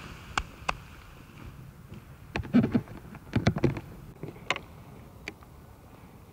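A series of sharp knocks and clicks: two single clicks in the first second, then two clusters of louder knocks and thuds about two and a half and three and a half seconds in, and a few more clicks later.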